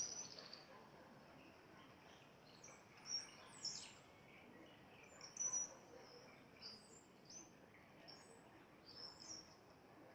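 Many small birds chirping, short high calls overlapping at irregular intervals, the loudest at the very start and again around three and five seconds in.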